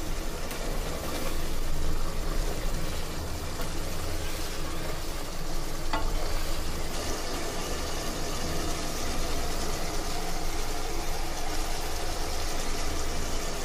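Thick quail gravy boiling in a pot, a steady bubbling hiss, with a single spatula knock against the pot about six seconds in.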